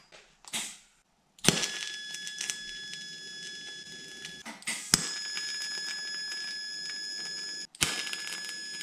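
TIG welding arc tack-welding steel: three arcs struck about a second and a half in, about five seconds in and near eight seconds, each starting with a sharp crack and holding a steady high-pitched whine over a soft hiss.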